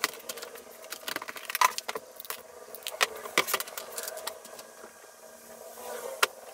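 Irregular sharp clicks and clatter of small hardware and tools being handled in a plastic parts organizer, busiest in the first half and thinning out after about four seconds.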